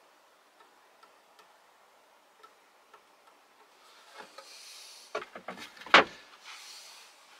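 A length of solid wood worktop being moved and set down on a wooden worktop: rustling as it is handled, a quick run of light wooden knocks, then one loud knock about six seconds in. Faint small ticks come before it.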